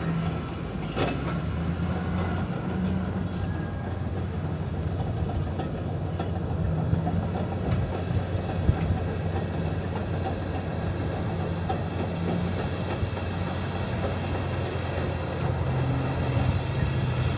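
Heavy diesel mining equipment, a crawler bulldozer and a haul truck, running with a steady low engine drone.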